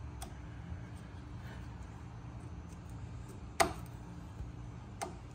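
Flathead screwdriver prying at a steel hub dust cap: faint metal scrapes and ticks, with one sharp metallic click about three and a half seconds in and a smaller one near the end, over a low steady hum.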